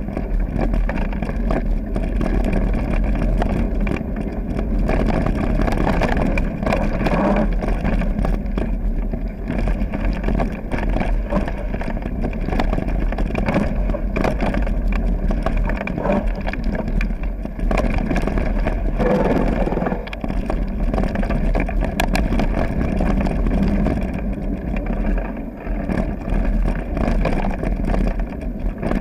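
Mountain bike riding a loose gravel and stone trail: tyres crunching over the stones, with frequent small knocks and rattles from the bike, over a steady low rumble of air buffeting the camera microphone.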